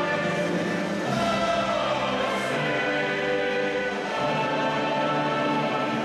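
A recorded national anthem played over the hall's sound system: a choir singing long held notes over an orchestra.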